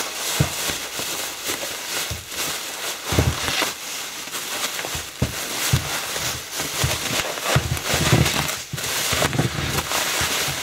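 Plastic bubble wrap being pulled off and handled, crinkling and rustling continuously, with a few dull low knocks.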